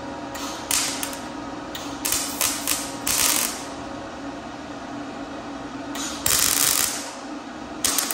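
MIG welder tack-welding a steel flare onto a car fender: short bursts of arc, several in the first three and a half seconds, a longer one about six seconds in and another just before the end, over a steady low hum.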